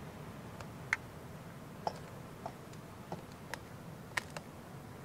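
Metal kitchen tongs clicking and tapping lightly against a stainless steel bowl while a piece of fish is turned in a flour dredge: a scatter of short sharp ticks, about eight in five seconds at uneven spacing.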